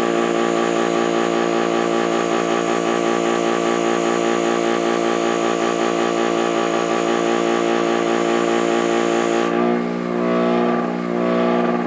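Electric buffer motor running steadily with its buffing wheel polishing a stainless steel wheel molding with compound. The high hiss of the work drops away near the end while the motor keeps running.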